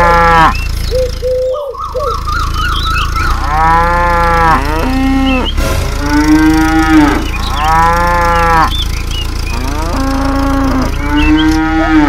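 Cows mooing, a string of long calls one after another, each rising and then falling in pitch, over a steady low hum.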